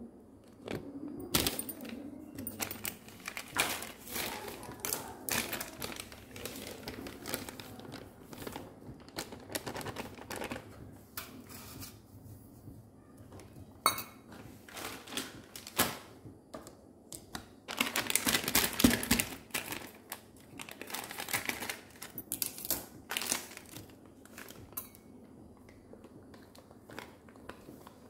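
Plastic flour packets crinkling and rustling as they are handled and flour is tipped out, mixed with irregular clinks and knocks of a stainless steel plate and cup.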